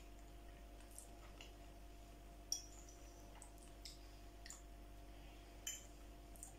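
Quiet eating sounds: a scatter of short, soft clicks from chewing and a fork tapping and scraping on a plate, roughly one every half second to second, the sharpest about two and a half seconds in, over a faint steady hum.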